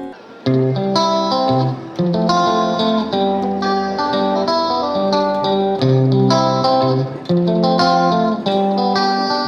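Background music: a guitar-led instrumental playing a melody of plucked notes, starting a new phrase about half a second in.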